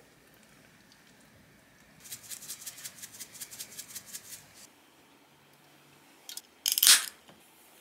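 Kitchen prep sounds: a quick run of light, crisp strokes, about eight a second for two and a half seconds, then a short louder rustle near the end.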